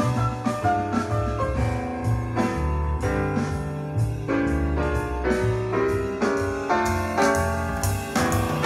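Piano music with a bass line and drums, played back through Ruark Solstice loudspeakers driven by a Wavebourn Gubernator-71 single-ended class A2 valve amplifier.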